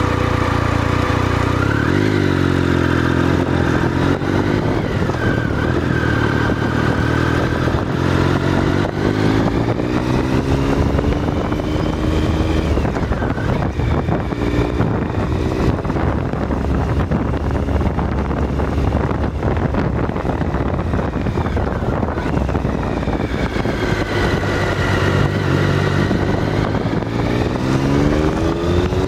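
Triumph Tiger 1050's three-cylinder engine running hard, its note climbing several times as the bike accelerates through the gears and dropping briefly at a shift, over a steady rush of wind and road noise at the handlebar.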